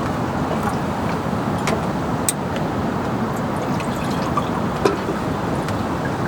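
Steady rain and rushing water, with scattered single drops tapping close by, the sharpest a little over two seconds in and near five seconds in.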